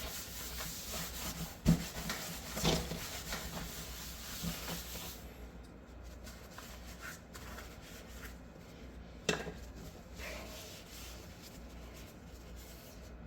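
Tools and cleaning items being handled and put away on a workbench: rubbing and wiping for the first five seconds or so, with a few sharp knocks as things are set down, the last about nine seconds in.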